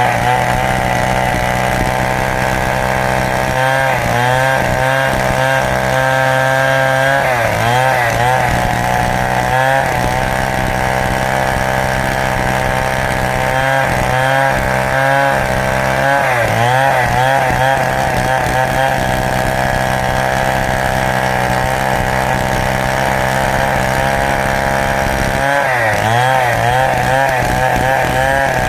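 Stihl chainsaw running hard, ripping lengthwise through a large teak log. The engine note holds steady but wavers up and down in several bouts.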